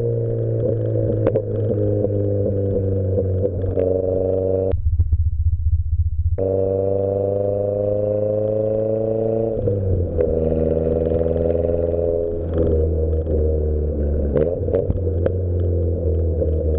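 Toyota Glanza V's turbocharged 1.3-litre four-cylinder with the muffler deleted, loud and unmuffled under throttle. Its pitch climbs, drops out to a low burble for a second or two, then climbs again. A few sharp cracks from the exhaust come through in between.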